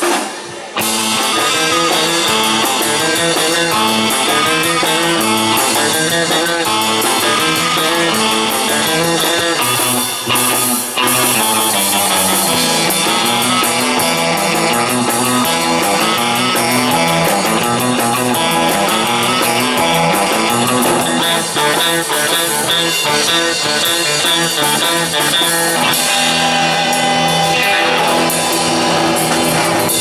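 Live jump-blues band playing: electric guitar, saxophone, electric bass and drum kit, the bass walking up and down under the horn and guitar.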